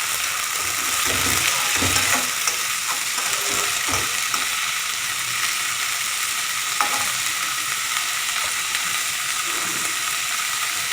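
Onions and green peas frying in hot oil in a pan, sizzling steadily, while a spoon stirs them, scraping or knocking against the pan a few times.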